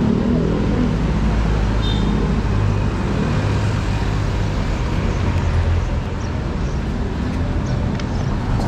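Road traffic on a busy city street: cars passing close by with a steady engine drone and tyre noise, a heavier low engine sound swelling from about three to six seconds in.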